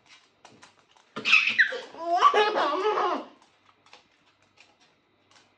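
A burst of laughter about a second in, opening with a high squeal that falls in pitch and lasting about two seconds, with a few light clicks before and after.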